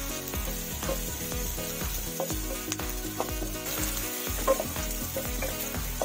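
Chopped garlic and sliced onion sizzling in hot oil in a nonstick wok, being sautéed until soft. A wooden spatula stirs them, giving scattered short scrapes and taps against the pan, the sharpest about four and a half seconds in.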